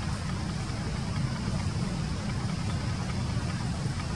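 Steady outdoor background noise: a low rumble with an even hiss above it and no distinct event.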